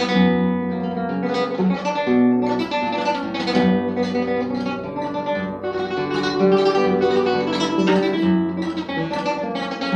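Solo nylon-string flamenco guitar playing a taranta, a tremolo passage of rapid repeated treble notes over plucked bass notes.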